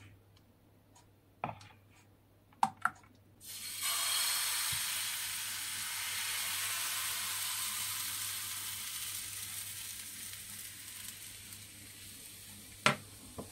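Thin pancake batter sizzling in a hot oiled frying pan. The sizzle starts suddenly about three and a half seconds in and slowly dies down. Before it come a few light clicks of the ladle against the batter bowl.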